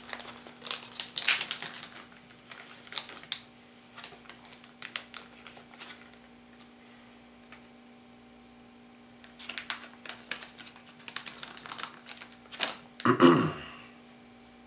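Plastic bait bag of soft-plastic tube lures being opened and rummaged, crinkling and clicking in two spells with a quiet pause between, then a brief louder burst near the end.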